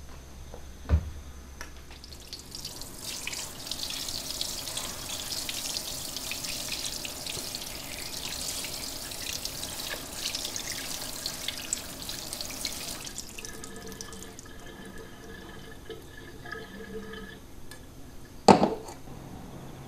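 Tap water running onto grapes in an aluminium colander at a sink, rinsing them; the water rushes steadily until about thirteen seconds in, then stops. A dull thump comes about a second in, and a sharp knock near the end.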